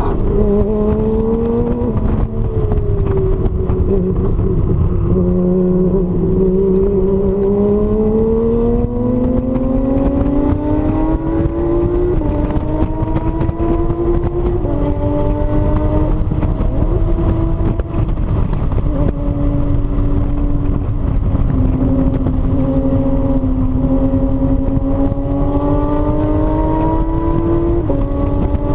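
Porsche sports car's engine heard from inside the cabin, pulling hard under throttle. Its pitch climbs steadily, drops at an upshift about 15 seconds in, then rises slowly again, over steady road and wind noise.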